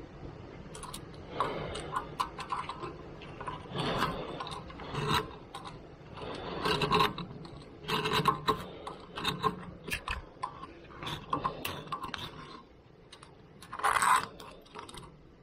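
Hand deburring tool scraping corrosion out of the wheel-bearing seat of a Skoda Octavia 4x4's rear hub carrier: a series of short, irregular metal-on-metal scraping strokes, the loudest near the end.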